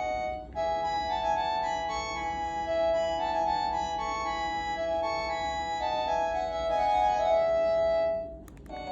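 Cordless phone handset playing an electronic melody ringtone: a tune of steady, organ-like notes. It breaks off briefly near the end, then starts over.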